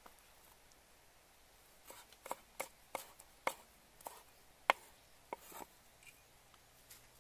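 A run of about a dozen sharp, irregular clicks and taps, starting about two seconds in. The loudest comes a little past the middle.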